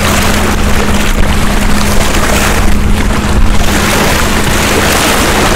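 Small sea waves washing and splashing against the rocks at the water's edge, swelling twice, over a steady rumble of wind on the microphone and a low steady hum underneath.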